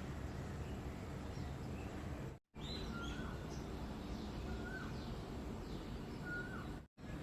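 Wind rumbling steadily on the microphone, with birds calling over it: a short whistled call that rises then drops comes three times in the second half, among fainter higher chirps. The sound cuts out completely for a split second twice, where clips are joined.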